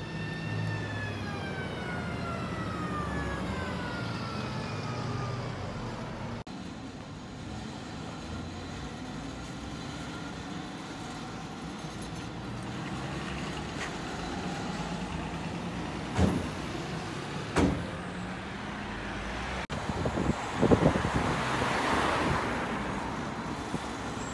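Single-deck bus engines running in a depot yard. In the first few seconds a bus drives off with a whine that falls steadily in pitch. Two sharp knocks come about a second and a half apart in the middle, and a car passes, swelling and fading, near the end.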